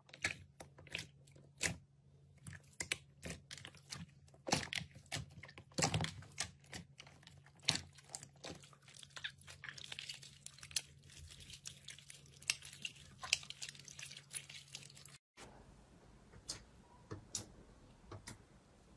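Hands kneading and squeezing white fluffy slime, giving rapid, irregular crackling clicks and pops. About fifteen seconds in the sound cuts to a hand pressing into clear purple jelly-like 'fake water' slime, with sparser clicks.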